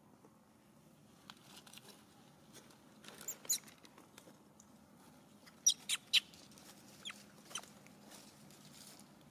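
Short, high-pitched animal chirps or squeaks, a handful coming in small clusters between about three and eight seconds in, against a faint steady background.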